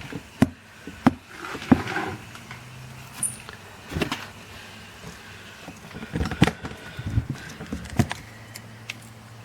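Plastic gecko tubs and a cricket container being handled: a scattering of separate sharp clicks, taps and light knocks, with a few soft scrapes between them.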